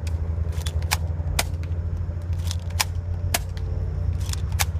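Airsoft Colt 1911 pistol firing, about half a dozen sharp snapping shots at uneven intervals, over a steady low rumble.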